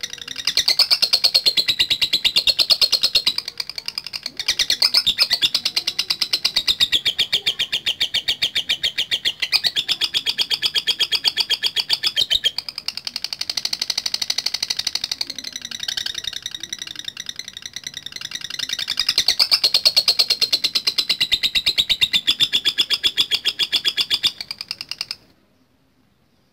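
Lovebird in full song, giving its long ngekek chatter: a rapid string of shrill high notes in phrases a few seconds long with brief breaks, stopping abruptly near the end.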